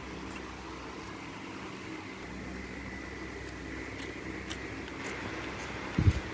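Fingers pressing and poking glitter slime: faint sticky clicks over a steady room hum, with a loud low rumble near the end.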